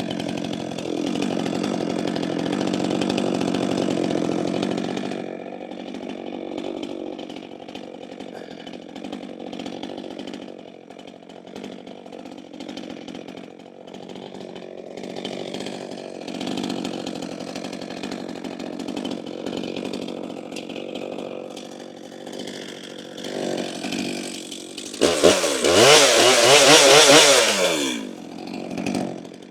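Stihl MS 462 C two-stroke chainsaw running just after a one-pull hot start: it runs fast for about five seconds, then settles to a steady idle. About 25 seconds in it is revved hard for about three seconds, the engine note rising and falling, before dropping back to idle.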